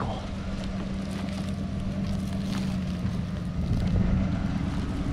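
A Ford pickup's engine running steadily under load as it drags a bundle of logs on a chain, with wind on the microphone.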